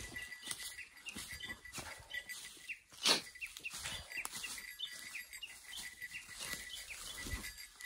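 Birds chirping over and over in the woods, with the scuffing and rustling of footsteps along a forest trail and one louder thump about three seconds in.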